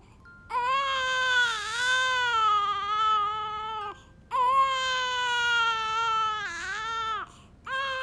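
Newborn baby crying in long, high wails, two full cries of about three seconds each with a short catch of breath between them, and a third cry starting near the end.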